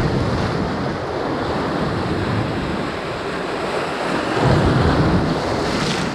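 Lake waves breaking and washing over large rocks on a breakwater, with wind buffeting the microphone. The surf swells louder about four and a half seconds in.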